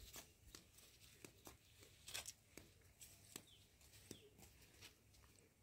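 Near silence in a garden: faint scattered clicks and rustles, with a few faint, short falling bird chirps.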